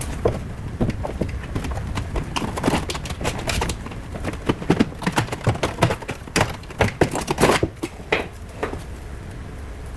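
Irregular knocks and clicks of hand work on a car door as tools and parts are handled. They are busiest and loudest around the middle and thin out near the end.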